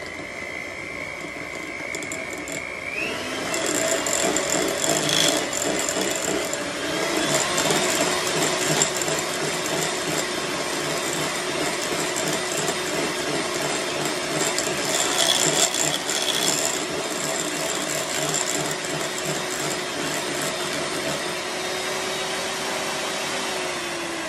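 Electric hand mixer running, its beaters whipping cream cheese frosting and clattering in a glass bowl. The motor whine steps up in pitch about three seconds in and winds down at the end as the mixer is switched off.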